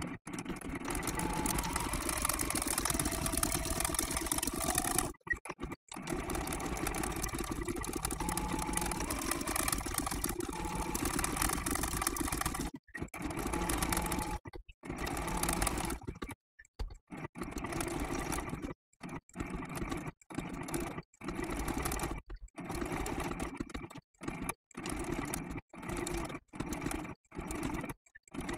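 Electric sewing machine sewing a blanket stitch along the edge of a layered fabric-and-batting appliqué. It runs steadily for several seconds at a time at first, with one brief stop. From about halfway on it stops and starts every second or so as the work is turned around the curve.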